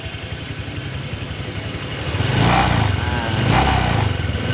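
Honda Vario 150 scooter's single-cylinder engine idling, then revved in short blips about once a second from about two seconds in. The rubber wedge is off its radiator cover, so the rattling, grinding 'ngerosok' noise is back; the mechanic puts it down to the radiator cover vibrating, not the CVT.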